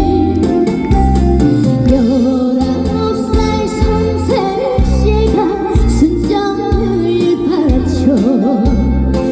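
A female singer singing a Korean trot song live with a wavering vibrato, over a backing track with a steady bass beat.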